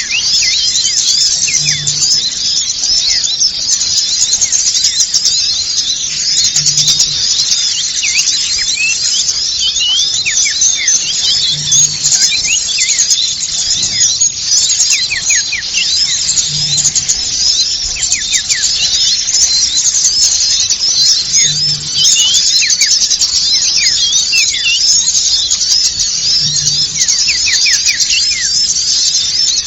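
Dense, unbroken chorus of many small birds chirping and twittering: a bird-lure (pikat) recording of small-bird calls, played to attract wild birds. A faint low note repeats about every five seconds.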